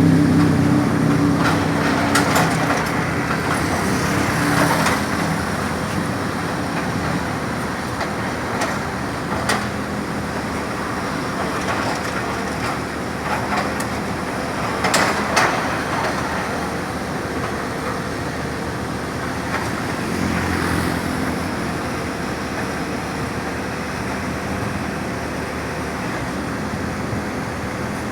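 Heavy-machinery engine running steadily, with a few scattered irregular knocks.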